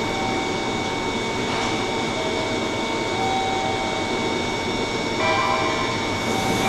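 Steady hum and whine of a JR 103 series 1500 electric commuter train standing at the platform. About five seconds in, a new set of steady tones joins the hum.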